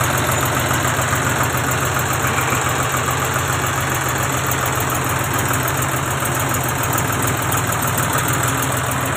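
John Deere 5310 tractor's three-cylinder diesel engine running steadily at idle, freshly rebuilt with new piston rings.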